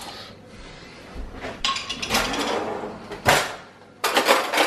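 A kitchen drawer pulled open, a knock, then cutlery clattering as a hand rummages through the cutlery drawer.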